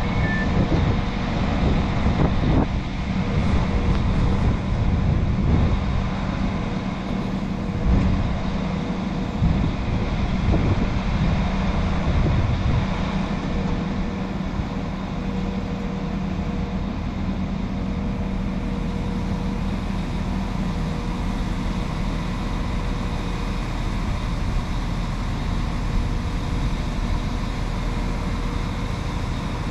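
Class 195 diesel multiple unit's underfloor diesel engines idling while the train stands at the platform: a steady low drone with a constant hum.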